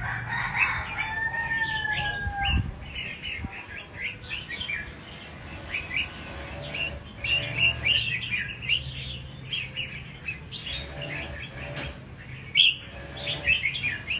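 Small songbirds chirping rapidly: many short, sharp calls in quick runs. Near the start there are a couple of longer whistles gliding slightly down and a brief high trill.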